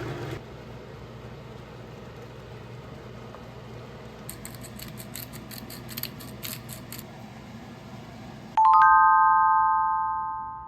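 A low, steady background with a run of light, high clinks in the middle, then a loud bell-like chime of several tones at once that starts suddenly near the end and fades out over about two seconds.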